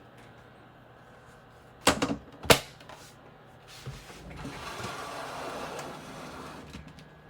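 Two sharp knocks about half a second apart, then a few seconds of rustling handling noise.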